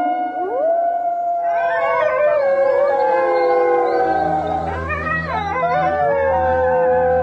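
Several long, overlapping canine howls that rise and waver in pitch, joined about halfway through by a low steady drone.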